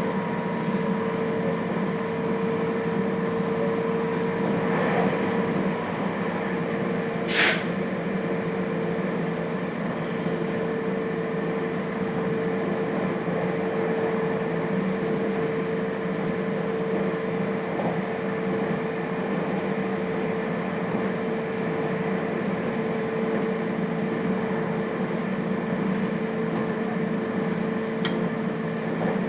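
Inside a JR Hokkaido 721-series electric train car (thyristor phase control): a steady rumble with a constant humming tone. There is one sharp, high click or squeak about seven seconds in, and a fainter one near the end.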